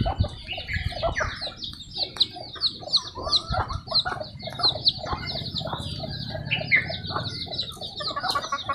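Domestic chickens clucking, with a high chirp repeating about four times a second alongside.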